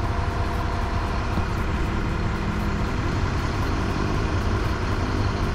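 Bus engine running close by: a steady low rumble with a constant hum.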